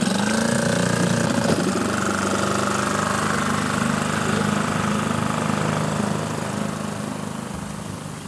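Small boat outboard motor running, picking up revs at the start and then holding steady, fading away over the last couple of seconds.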